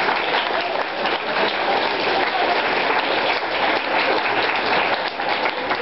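Small audience applauding, a dense, steady clatter of many people clapping.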